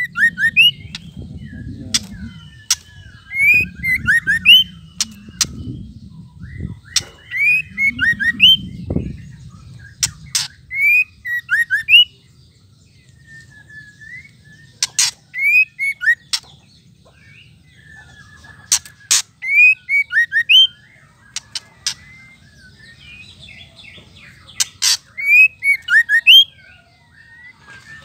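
White-rumped shama calling: bursts of short rising whistled notes mixed with sharp dry ticks, the chattering 'ketrekan' call, repeated every few seconds with brief pauses. A low rumble sits under the first part.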